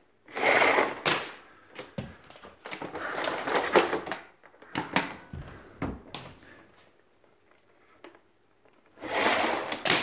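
Clicks, knocks and scuffing from an Electrolux canister vacuum cleaner being nudged and pressed with a foot and shifted on a rug, in irregular bursts. No motor hum: the vacuum does not start.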